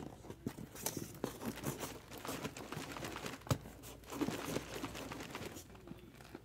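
Cardboard hobby boxes scraping and rubbing against the walls of a tightly packed cardboard case as they are worked out one at a time, with rustling and a few light knocks. One sharper knock comes about three and a half seconds in.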